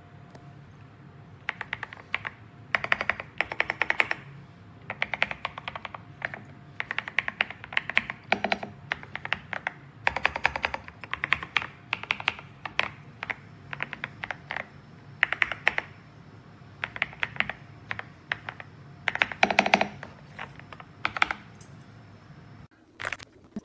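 Typing on a YUNZII C75 75% mechanical keyboard with Candy linear switches and PBT keycaps: bursts of quick keystrokes separated by short pauses.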